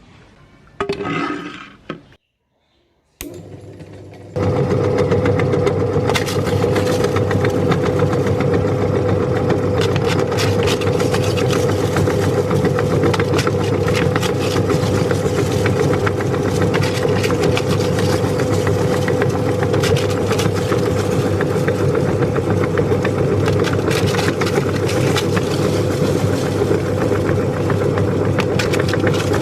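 An electric meat grinder switches on about four seconds in and its motor runs steadily, with a dense crackle over the hum.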